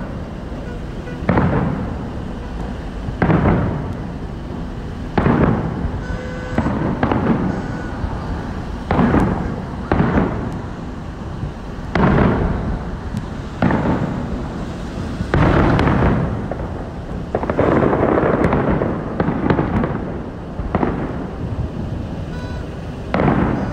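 Aerial firework shells bursting one after another, a deep boom every one to two seconds that dies away in a rumbling tail, with a quicker run of overlapping bursts past the middle.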